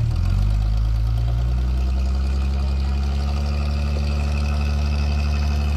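Off-road 4x4's engine running steadily at low revs, its note stepping up slightly just after the start and then holding level.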